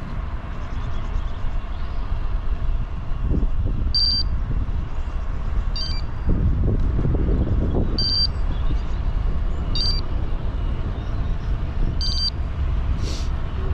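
Wind rumble on the microphone and road noise from a bike riding along a road, with a short high electronic beep repeating about every two seconds; the rumble swells louder for a couple of seconds around the middle.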